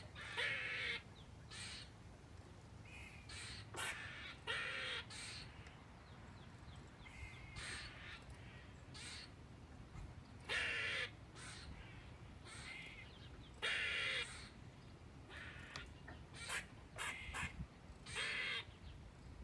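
Eastern gray squirrel giving alarm calls, a danger warning. The calls are short and come in irregular bouts every few seconds, the loudest about half a second long.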